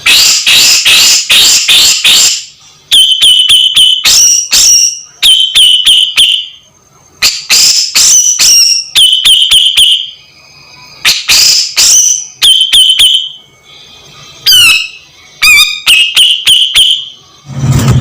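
Grey-cheeked bulbul (cucak jenggot) calling loudly in a series of harsh, rapid chattering phrases, many ending in a held note, with short pauses between groups and a quick wavering trill near the end.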